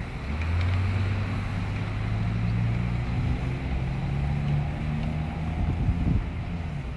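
A low engine hum whose pitch climbs slowly over several seconds, under a steady rushing noise like wind on the microphone.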